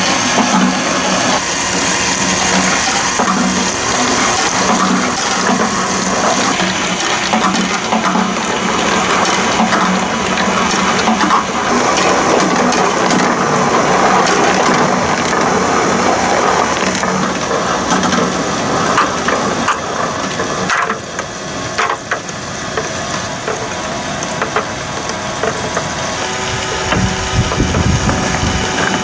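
Plastic balls clattering and rolling through a toy marble run, with the steady hum of a motorised toy escalator lifting them in the first half. Near the end there are knocks of balls being set into a wooden tray.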